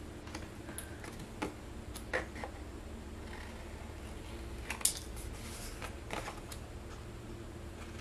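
Small scissors snipping cardstock, a few short, sharp cuts spread out as the corners of a scored paper piece are trimmed off, with light paper handling between them over a faint low hum.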